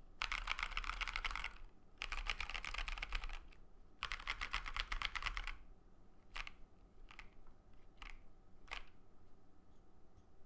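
Mechanical keyboard (KBDFans KBD67 Lite R2) with stock, factory-lubed Pewter light-tactile switches, a polycarbonate plate and PBT keycaps: three quick runs rolling across the home row (asdfghjkl), each a rapid string of keystrokes, then four single keystrokes.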